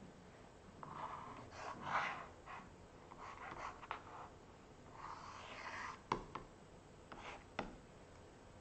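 Faint scratching of a stylus drawing short strokes on a tablet, with a few sharp taps in the second half.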